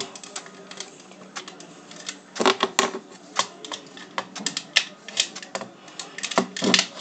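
Irregular small clicks and taps of a pistol's parts being handled and worked apart by hand, with two louder clusters of clicks, about two and a half seconds in and near the end.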